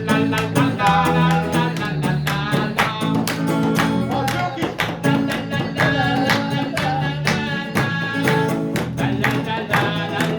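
Band music: a singer's voice over instrumental backing with a steady beat.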